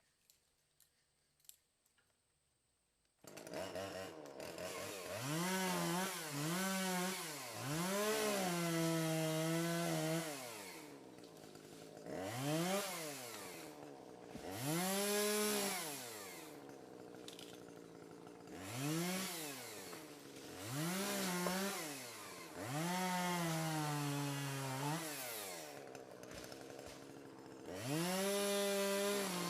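Chainsaw comes in suddenly about three seconds in and is revved up and down again and again, each time held at high revs for a second or two as it cuts wood, the pitch sagging a little while held under load.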